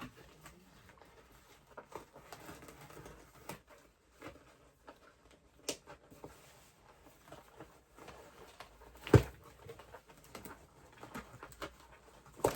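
Handling noise from a toy doll and its parts: scattered light clicks, taps and rustles, with one loud thump about nine seconds in.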